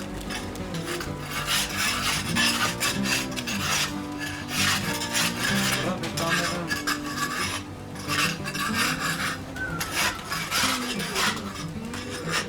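Pigeons cooing in short, arching low hoots over repeated raspy rustling bursts.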